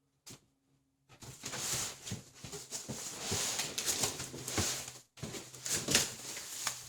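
Cardboard box and packing material rustling and scraping as parts are pulled out and handled, with a few sharp knocks, the loudest near the end. A faint steady low hum runs underneath.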